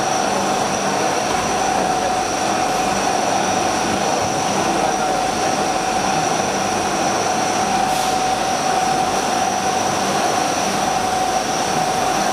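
CNC machine cutting a part under flood coolant: a steady hiss of coolant spray and machining with a constant mid-pitched whine from the spindle and cut. A single light click about eight seconds in.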